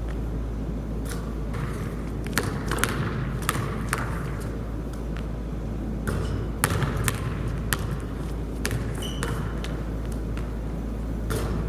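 A basketball bouncing, a dozen or so sharp, irregularly spaced thuds, over a steady low hum.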